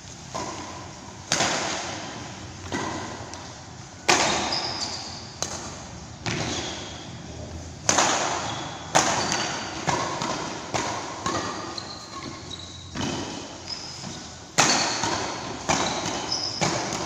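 Badminton rally: rackets striking the shuttlecock in sharp hits at roughly one a second, irregularly spaced, each ringing out in the hall's echo, with short high squeaks between hits.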